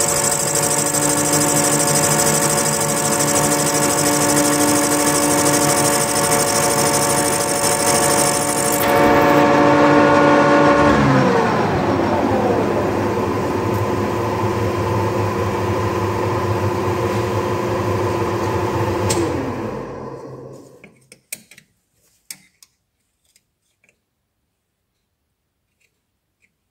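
Metal lathe running with a steady multi-tone gear whine, with a high hiss over it for the first third. About eleven seconds in the whine drops to a lower pitch. Near twenty seconds the lathe is switched off and winds down to quiet, followed by a few faint clicks.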